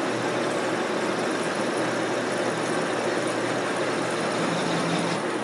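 1944 Sidney 16-inch engine lathe running steadily with a constant hum, taking a turning pass on a steel part.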